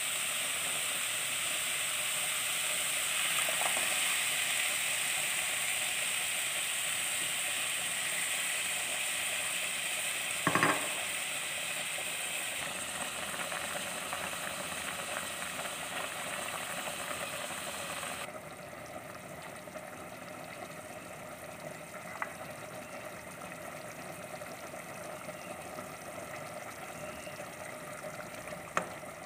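Ground meat frying in a pot, a steady sizzle with a wooden spoon stirring through it. About ten seconds in there is one sharp knock. A little past halfway the sizzle drops to a quieter level, and a few faint clicks of the spoon come after that.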